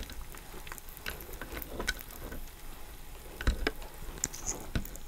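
Knife cutting into a crusty cheesesteak roll on a wooden board, picked up close: small scattered crackles and clicks, with a couple of sharper knocks about three and a half and nearly five seconds in.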